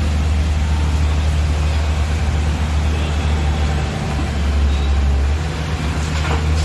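Heavy diesel engine running steadily under load, with a shift in its low note about two thirds of the way through and some clatter near the end.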